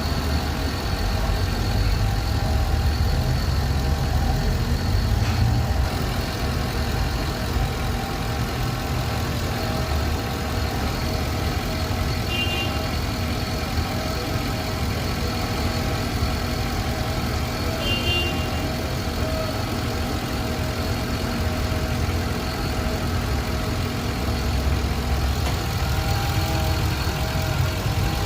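Car engine idling steadily, with two brief high chirps about midway.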